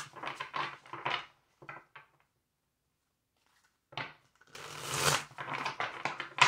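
Tarot cards being shuffled and handled: a spell of quick papery rustling and flicking in the first second, near silence, then a denser spell of shuffling from about four seconds in.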